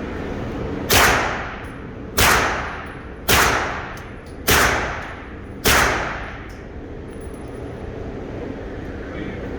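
Glock pistol fired five times in slow, even succession, a shot about every second and a quarter, each crack followed by a short echo tail.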